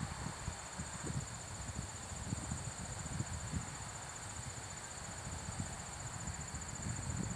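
Insects trilling steadily in a high, rapidly pulsing chirr, with irregular low rumbles from wind buffeting the microphone.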